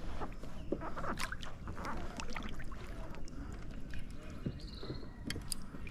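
A kayak paddle working the water beside the boat: light splashes with scattered clicks and knocks. A short high bird call comes near the end.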